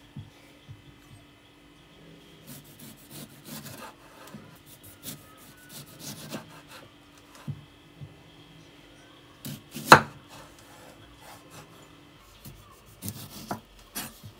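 Kitchen prep sounds: a knife chopping on a wooden cutting board in irregular strokes, with one sharp, loud knock about ten seconds in. A faint steady hum underneath stops about twelve seconds in.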